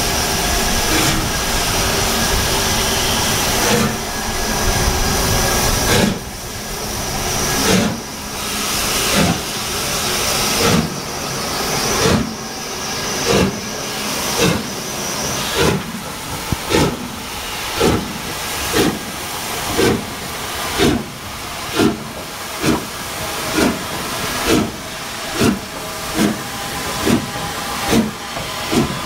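LMS Stanier Black Five 4-6-0 steam locomotive 45428 pulling away from a stand. A steady hiss of steam comes first, then about six seconds in come the exhaust chuffs, slow at first and gradually quickening to roughly one a second as the engine gets under way.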